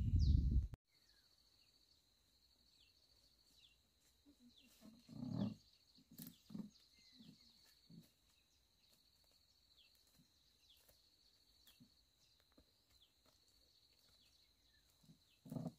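Steady high-pitched insect drone with short, repeated falling bird chirps over it. A loud low noise cuts off suddenly under a second in, and a few brief low sounds come in the middle, the loudest about five seconds in.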